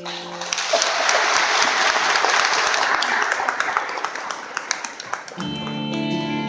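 Audience applauding for about five seconds after a carol ends, then instrumental accompaniment starts the next piece near the end.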